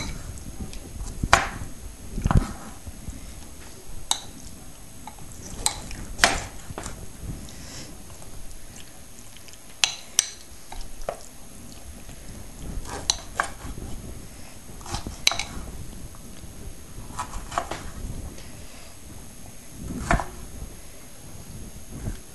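A knife chopping bell peppers on a wooden cutting board, irregular knocks every second or so, mixed with a metal spoon clinking against a ceramic bowl. Some clicks ring briefly.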